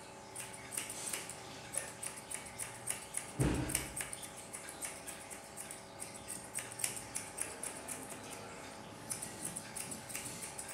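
Grooming scissors snipping a Spanish water dog puppy's coat around the head: a run of quick, irregular snips, with a single low thump about three and a half seconds in.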